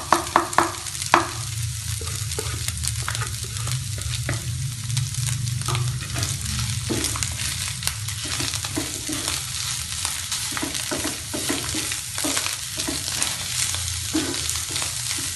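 Shredded chicken and spice paste frying in a nonstick pan: a steady sizzle, with a wooden spatula scraping and stirring through it in frequent short strokes. In the first second or so, about six quick sharp knocks as seasoning is tapped out of a bowl into the pan.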